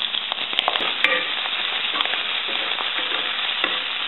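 Oil sizzling steadily as chopped parsley, green chili and ginger fry in a nonstick pan, with small clicks and scrapes of a wooden spatula stirring them.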